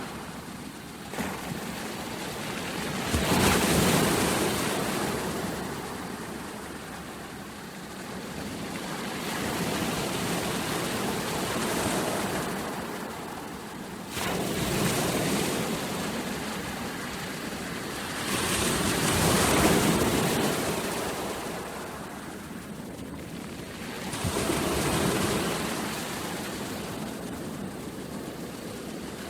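Sea waves breaking and washing back, the surf swelling and ebbing roughly every five seconds. One wave comes in with a sudden crash about halfway through.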